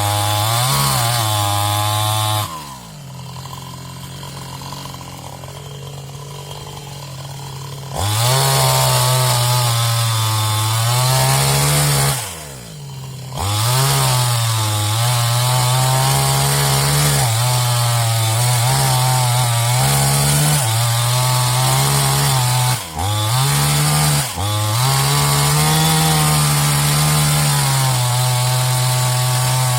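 New West 628 two-stroke chainsaw running at high revs with its pitch wavering as it cuts wood. A few seconds in it drops to a quieter idle for about five seconds, then revs back up; it briefly drops off the throttle again a few times.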